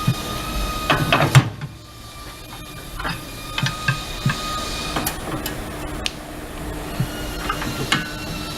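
Scattered metal clanks and knocks of tire-mounting work, the loudest about one and a half seconds in, over a steady machine hum whose lowest tone drops out just after that knock and returns about five seconds in.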